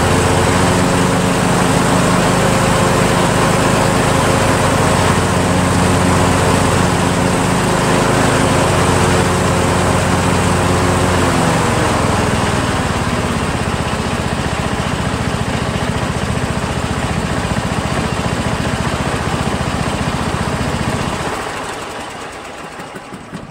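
John Deere L100 lawn tractor's Briggs & Stratton engine running steadily. About halfway through its pitch drops a little and the sound turns rougher, and near the end the engine is shut off and winds down.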